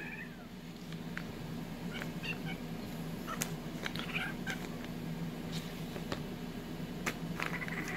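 Orange tabby kitten pawing at boiled peanut shells in a plastic tray: scattered light clicks of the shells, with a few faint, short high kitten squeaks, over a steady low hum.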